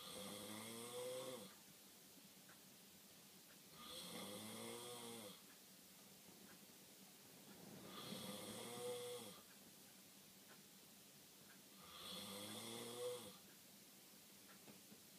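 A man snoring in a slow, regular rhythm: four snores about four seconds apart, each about a second and a half long, with a buzzing pitch that rises and then falls.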